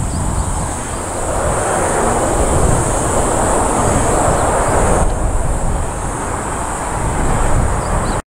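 Distant jet engine rumble from a Boeing 747-400 on the runway, swelling slightly in the middle. A steady high hiss sits above it.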